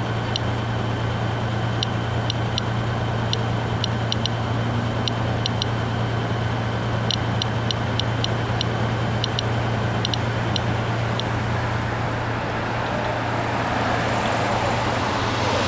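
Inspector+ Geiger counter chirping once for each detected count: short high-pitched clicks at irregular, random intervals, roughly two a second, held over the ground at a reading of about 0.4 µSv/h. The clicks stop about two-thirds of the way through, and a passing car's noise rises near the end over a steady low hum.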